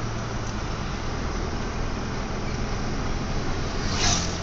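Car engine and tyre noise heard from inside the cabin while driving on a highway: a steady drone with a low engine hum that drops slightly in pitch about a second in. A brief hiss rises near the end.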